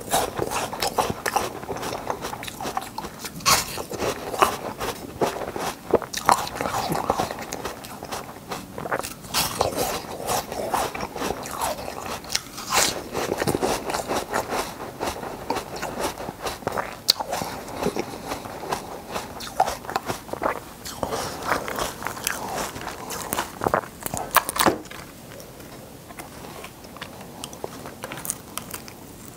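Ice being bitten and chewed close to a clip-on microphone: dense, irregular crunching and cracking, growing quieter for the last few seconds.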